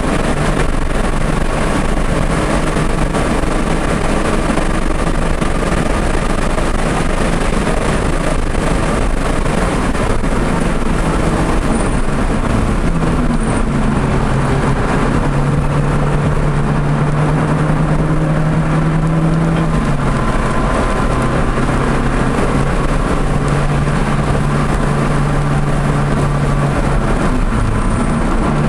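Audi TT engine running at speed on a race track, under a steady rush of wind and tyre noise. Partway through, the engine note climbs and then holds steady for several seconds, steps down a little, and holds again.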